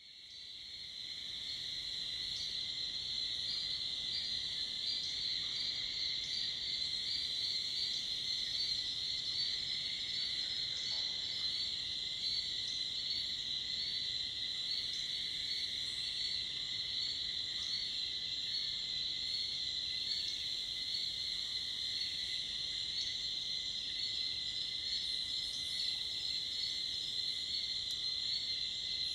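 Dusk insect chorus of cicadas and crickets: a dense, steady, high-pitched drone with a second, lower-pitched insect band beneath it. It fades in over the first couple of seconds, then holds even.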